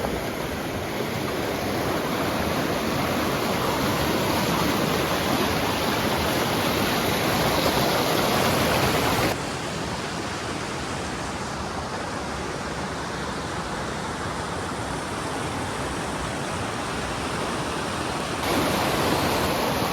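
River water rushing in a steady, even roar-free rush. The sound drops suddenly to a quieter, duller rush about nine seconds in, and brightens again near the end.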